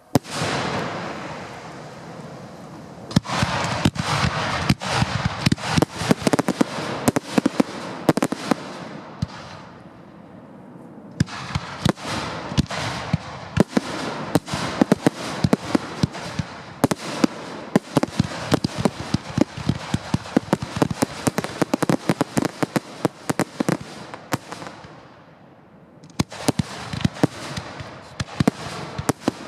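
Fireworks display heard close up from the firing site: a loud bang at the very start, then long runs of rapid, dense bangs and crackle, with two short lulls, about ten and twenty-five seconds in.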